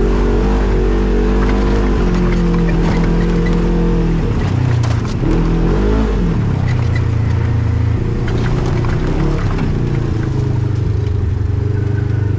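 Off-road vehicle engine running on a trail under changing throttle. The pitch is steady at first, falls and rises again about four to six seconds in, then settles lower with another brief rise and fall later. A few short knocks sound in the middle.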